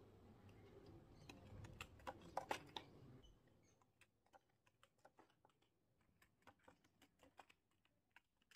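Faint, irregular light clicks and taps of a paper tumbling toy flipping end over end along a paper track, several a second. A low background rumble stops about three seconds in.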